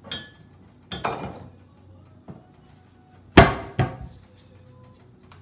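Kitchen handling knocks as a bottle is fetched from a lower cabinet: a few light knocks, then two sharp bangs about half a second apart a little past halfway, the first the loudest, like a cabinet door being shut.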